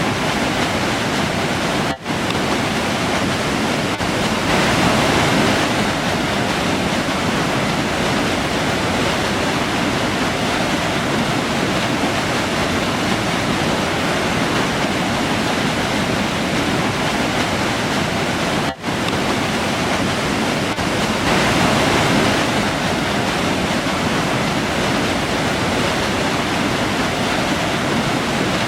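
River water rushing steadily, an even full-band wash of flowing water. It swells slightly twice and cuts out for an instant twice, about two seconds in and again about two-thirds through.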